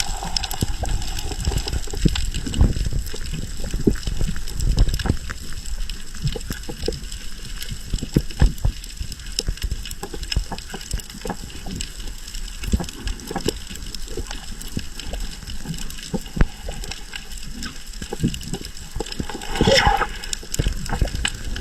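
Water noise with a low rumble and many crackling clicks, typical of audio recorded underwater, with a brief sweeping sound about twenty seconds in.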